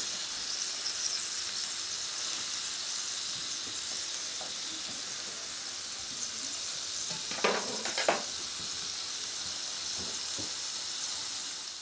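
Burger patties sizzling in a frying pan, a steady hiss, with two short sharp knocks of a spatula against the pan a little past halfway.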